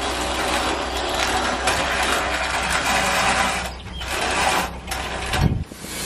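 Wood-Mizer LT15 portable sawmill running, its engine going steadily with mechanical clattering, as the log sits on the bed before the cut. A heavy low thump comes about five and a half seconds in.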